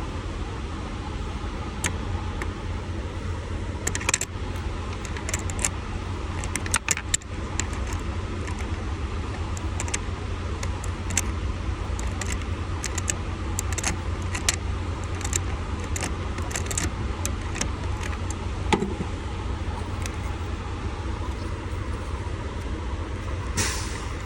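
Scattered small metallic clicks and clinks of hand tools and parts being handled while working on a truck's steering column, over a steady low hum. A short rasping scrape comes near the end.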